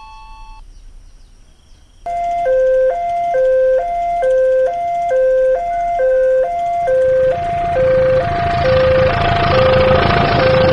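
Level-crossing warning alarm: two electronic tones alternating high and low, about every 0.4 s, starting about two seconds in. From about halfway a passing train's running rumble swells up beneath it and keeps getting louder.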